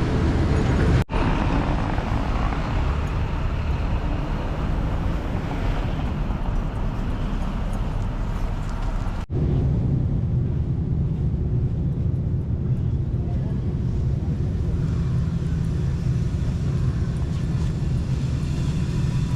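Steady city street traffic noise with a low rumble, broken by two abrupt brief dropouts, one about a second in and one about nine seconds in.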